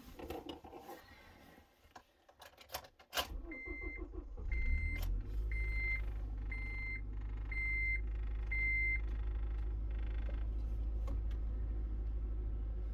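A Honda Element's four-cylinder engine is started cold after a few clicks of the door and key, then settles into a steady idle to warm up. Over the start, a dashboard warning chime beeps six times, about once a second.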